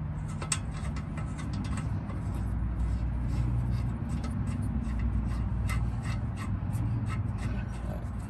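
Light, scattered metallic clicks and taps of brake caliper bracket bolts and bracket being handled and threaded in by hand, over a steady low hum that swells a little after about two seconds.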